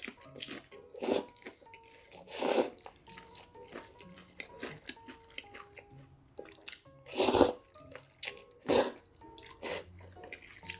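Close-miked eating sounds: a handful of short, loud mouth noises of biting and chewing, the loudest about seven seconds in, over faint background music.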